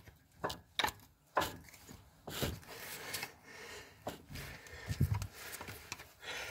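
Renault dCi diesel engine being turned over by hand with a wrench on the crankshaft pulley bolt: a few light metallic clicks, then scraping and rubbing with a dull clunk about five seconds in. The owner first took the clunk for connecting-rod bearing play and later judged it normal play or the flywheel.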